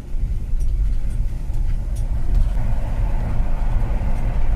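Steady low rumble of engine and tyre noise from a rear-wheel-drive minivan driving through a road tunnel, getting a little louder about two and a half seconds in.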